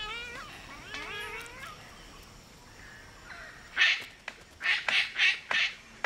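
Palm cockatoos calling. Two wavering whistled calls come in the first couple of seconds, then a run of short, harsh screeches starts about four seconds in.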